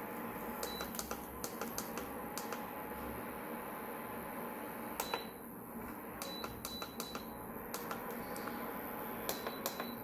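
Push buttons on a Prestige PIC 20 induction cooktop's control panel clicking again and again, several presses answered by a short high beep, over the steady whir of the cooktop's cooling fan.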